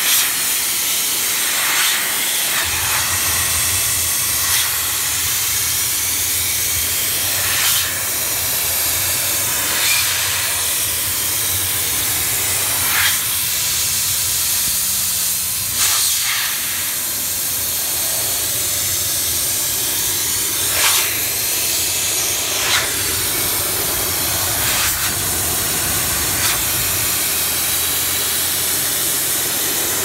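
Dry steam hissing steadily from an Optima steamer's flat wand nozzle as it is sprayed into the fins of an HVAC coil, with short louder surges every few seconds. A low hum starts about three seconds in and stops near the end.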